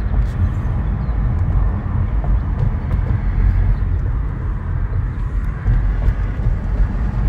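Low, steady rumble of a car's engine and tyres heard from inside the cabin while driving slowly.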